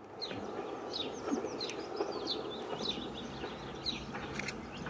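Small birds chirping: many short, quick calls that slide downward in pitch, repeating every half second or so, over a steady low background noise.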